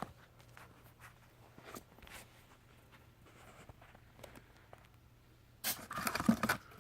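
Packaging being handled: scattered light taps and rustles, then a louder burst of rustling and scraping for about a second near the end.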